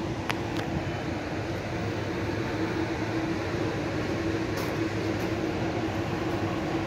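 Steady machinery hum aboard a docked cruise ship: a constant drone under an even, airy hiss, like ventilation fans running.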